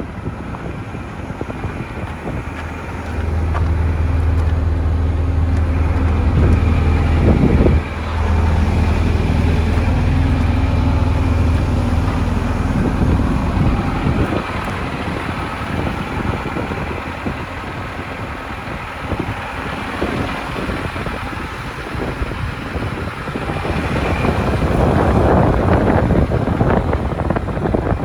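Deere 245G LC excavator's Isuzu 4HK1 diesel engine running. A strong, steady low drone comes in about three seconds in and fades out after about thirteen seconds, with wind buffeting the microphone.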